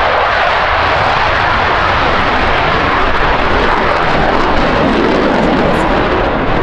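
F-16 Fighting Falcon's jet engine, loud and steady as the fighter passes low and climbs away, its noise sinking lower in pitch in the second half.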